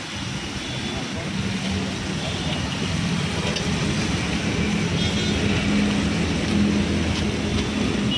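Road traffic, with a vehicle engine running close by: a steady hum that sets in about a second and a half in and grows louder.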